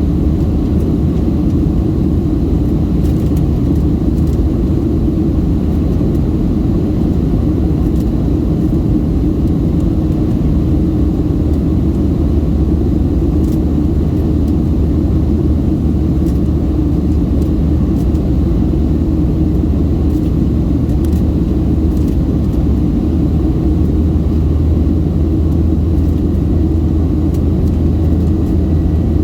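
Steady low rumble of a Boeing 737-700's CFM56 jet engines and the airflow over the fuselage, heard inside the cabin during the climb after takeoff.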